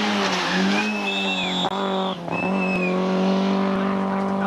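Hatchback rally car driven hard: the engine runs at high revs, its pitch dipping briefly twice. The tyres squeal twice, about a second in and again about two and a half seconds in.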